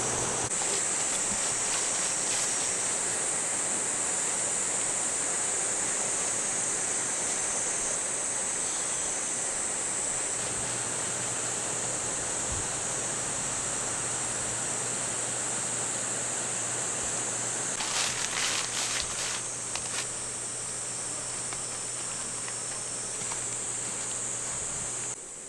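Valley stream flowing steadily, with a constant high-pitched insect chorus above it. A few brief clicks about three quarters of the way through.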